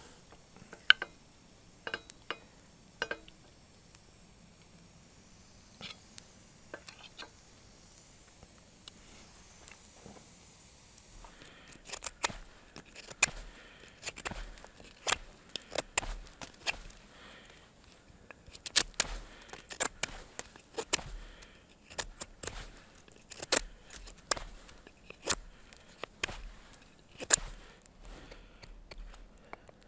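Irregular sharp clicks and light knocks, sparse at first and coming thick and fast from about twelve seconds in, with soft low thumps among them.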